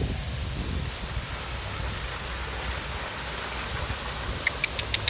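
Steady rush of a waterfall, with a low rumble at the start and a few sharp clicks near the end.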